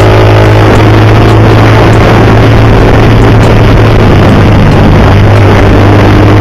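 Hero Xtreme 200S's single-cylinder engine running steadily through a loud aftermarket exhaust: a constant low drone with a dense rushing noise over it.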